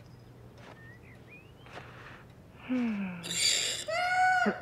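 Cartoon cat vocalizations. After a quiet start with a few faint squeaks, there is a short low falling mew about two and a half seconds in, then a breathy hiss-like burst, and near the end a louder meow that rises and falls.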